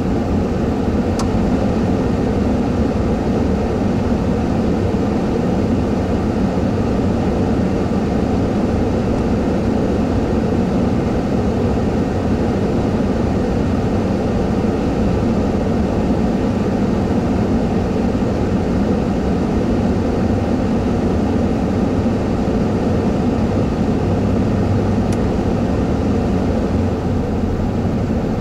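Steady rumble of a parked vehicle's idling engine, heard from inside its cab.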